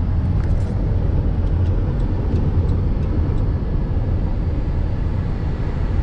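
Steady road and engine noise inside a minivan's cabin at highway speed: a constant low rumble with tyre hiss and a few faint ticks.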